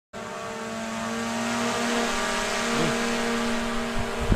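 Quadcopter drone's propellers whining steadily as it hovers with a fishing line hanging beneath it, growing louder over the first couple of seconds. A brief low thump near the end.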